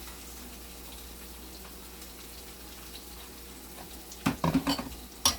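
Oil sizzling steadily in a frying pan. Near the end come several sharp clatters of a utensil and cookware knocking against the pan.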